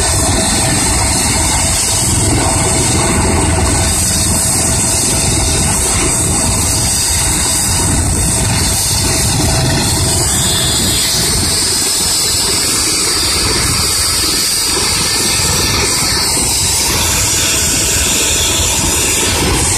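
Eurocopter EC135 air-ambulance helicopter running on the ground, a steady high turbine whine over a low rumble.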